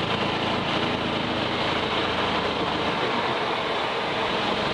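Golf cart driving along a paved street: a steady rush of wind and tyre noise with a low motor hum underneath.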